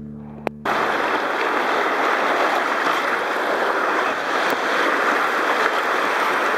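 Rushing whitewater of a fast mountain-river rapid, heard close up from a kayak's deck as it runs the rapid. It starts suddenly after a click about half a second in, behind the fading end of a piece of music, and then runs loud and steady.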